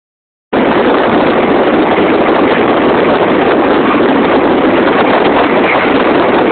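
Strong wind blowing across a phone's microphone: a loud, steady rushing noise that starts abruptly about half a second in.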